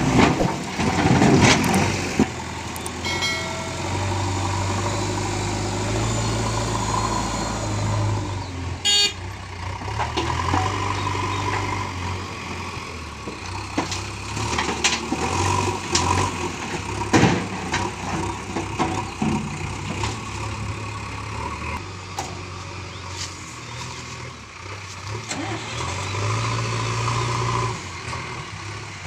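Backhoe loader's diesel engine running under changing load, its low drone rising and falling as the machine works. Sharp knocks near the start, about nine seconds in and about seventeen seconds in.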